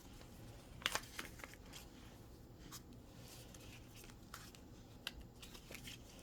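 Faint rustling and scattered light clicks from small plastic toy items and packaging being handled, the sharpest tick about a second in.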